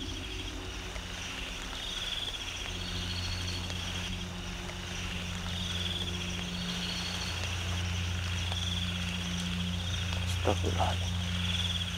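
Night insects, cricket-like, trilling in short high buzzing phrases that repeat every second or two over a steady low hum.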